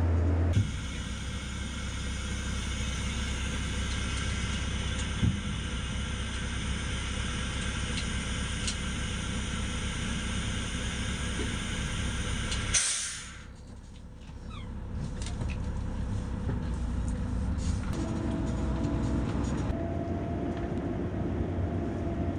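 Truck engine and driving rumble heard from inside the cab, steady throughout. The sound changes abruptly about half a second in, and again about thirteen seconds in, where it drops away for a moment before building back up.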